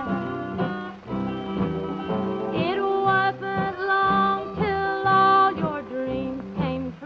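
Classic country band music: a guitar and a steady bass rhythm under a lead melody of held, wavering notes that slide between pitches.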